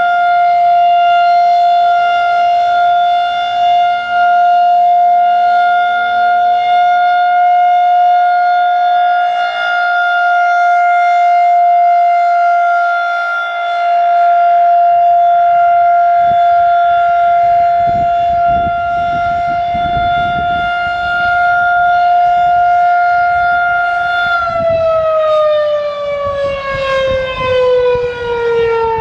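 Federal Signal 2001-130 electromechanical outdoor warning siren sounding the steady Alert tone, one held pitch. About 24 seconds in it begins winding down, the pitch falling steadily as the one-minute Alert cycle ends.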